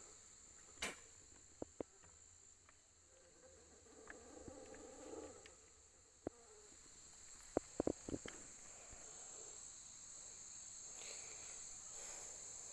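Steady high-pitched insect chirring throughout, with a few sharp clicks or taps, several of them close together about eight seconds in.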